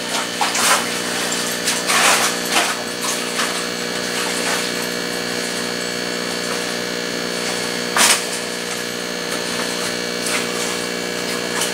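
Steady electric hum of a fish-tank pump running, with a few brief splashes as a dip net is swept through the tank water, the biggest about eight seconds in.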